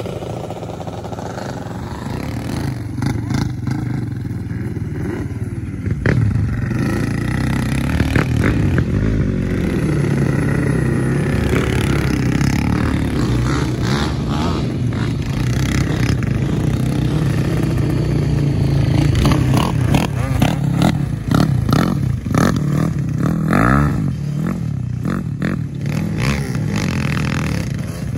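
ATV engine running on a trail, its pitch rising and falling with the throttle, with scattered knocks and rattles, thickest in the last third.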